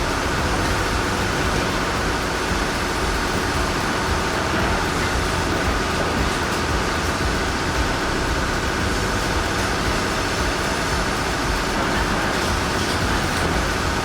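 Heavy truck driving on a dirt road: a steady, even rumble of engine and road noise.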